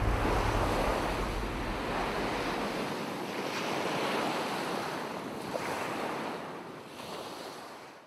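Ocean surf: waves washing in, in slow swells, fading out toward the end.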